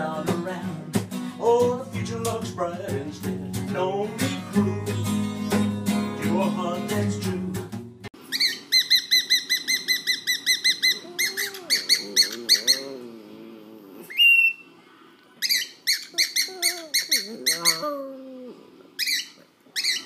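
Acoustic guitar strummed for about the first eight seconds. Then a cockatiel chirping in rapid trains of sharp, repeated chirps, with one short rising whistle partway through and lower wavering sounds under some of the chirp trains.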